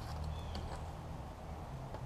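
A few faint light clicks as a coiled steel rudder cable is handled and unwrapped, over a steady low background rumble.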